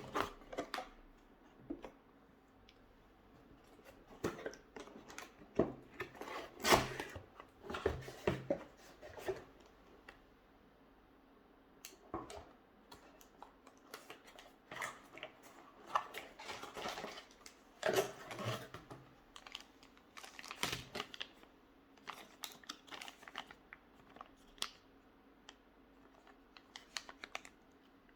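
Irregular clicks, taps and rustles of motherboard packaging being handled and opened, in two busy stretches with a quieter spell between them.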